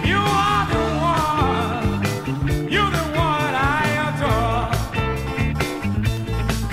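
Blues-funk song played from a vinyl 45 single: drums, electric bass and lead guitar, with a sliding lead melody line that comes in at the start and again about three seconds in.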